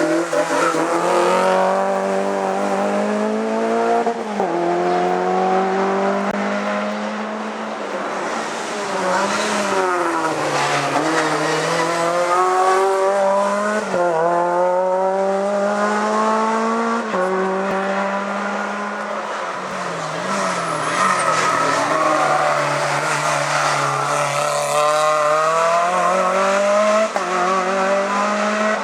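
Race car engine driven hard on a hillclimb, revving up through the gears: the pitch climbs and then drops sharply at each upshift, and in places it dips and rises again as the car slows and accelerates out.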